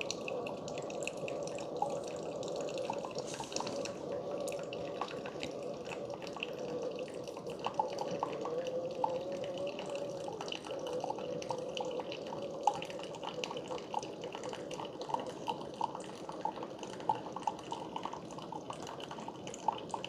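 Keurig K-Supreme Plus coffee maker brewing on its intense strength setting: a slow, unbroken stream of coffee trickling into a glass mug, with many small drips and splashes over a steady running sound. The slow stream is the sign of the stronger brew setting, which lengthens the brew without pausing.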